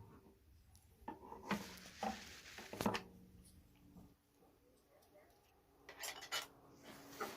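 Knocks and light clinks of objects being handled on a workbench, a cluster about one to three seconds in and another near the end, some leaving a brief ringing tone.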